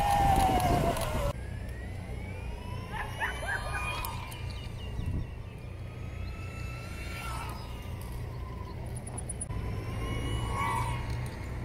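N5065 270kv brushless motor on a home-built electric scooter whining as it slows, its pitch falling steadily, over wind and wheel noise. After a cut about a second in, fainter whines swell and fall away a few times as the scooter rides past, over a steady low hum.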